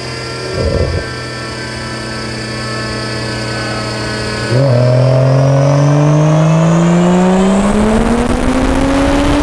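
Turbocharged BMW N55 straight-six of a big-turbo 435i running on a chassis dyno. It holds a steady speed at first, with a brief louder surge just under a second in. About four and a half seconds in the throttle opens: the engine gets much louder and its pitch climbs smoothly and steadily under full load, a wide-open-throttle dyno pull.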